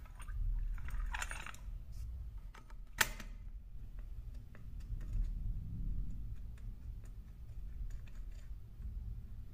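Light metal clicks and a short scrape from a homemade wire-bending tool and a coiled wire spring being handled, with one sharp click about three seconds in.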